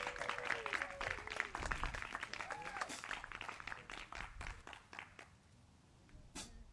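Small audience clapping by hand, the applause fading out about five seconds in. A single sharp click near the end.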